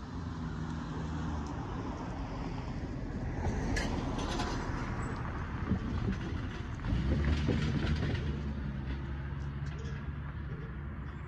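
Cars driving across a railroad grade crossing: a few sharp clacks as tyres roll over the rails about four to five seconds in, then a car's engine hum gets louder as it passes close, about seven seconds in.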